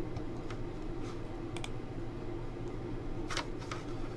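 A few scattered clicks and taps on a computer keyboard and mouse, over a steady low hum in the room.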